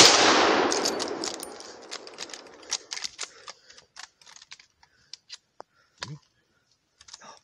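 A single gunshot fired by a boar hunter, its echo rolling through the wooded valley and dying away over about two seconds, followed by scattered light clicks and knocks.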